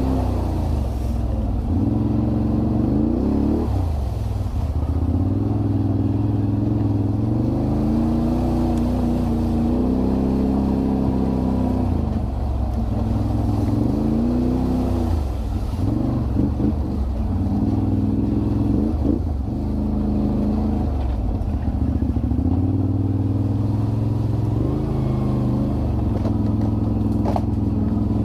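Can-Am Renegade 1000 ATV's V-twin engine running while being ridden, its pitch rising and falling again and again as the throttle is worked.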